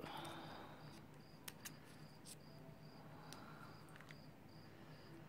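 Faint handling of a pin-tumbler lock cylinder: a short scrape, then a few small metallic clicks. Behind it, a steady high chirp repeats about two to three times a second.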